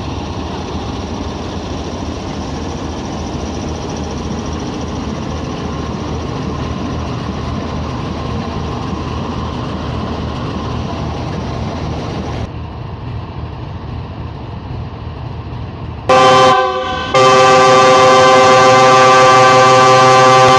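GEU-40 diesel-electric locomotive rumbling steadily. About 16 seconds in its multi-tone air horn sounds loudly, a short blast and then, after a brief gap, a long held blast.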